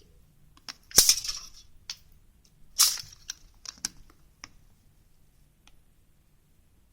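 Crinkly metallic clicks and clatters of a thin aluminium sheet cut from a soda can being handled and trimmed, with two louder clatters about one second in and just before three seconds, then a few light ticks.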